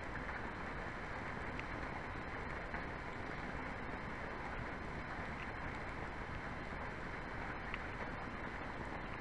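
Steady rushing noise of a violent storm, with a few faint ticks.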